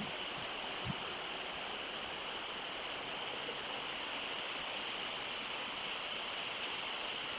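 Steady outdoor background hiss on an open microphone, an even noise strongest in a high band, with one faint low bump about a second in.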